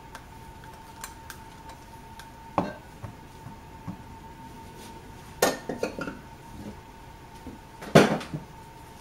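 Soap-making utensils and containers knocking and clinking on a worktable as they are handled and set down: a single knock a few seconds in, a quick cluster of clatters past the middle, and the loudest knock near the end.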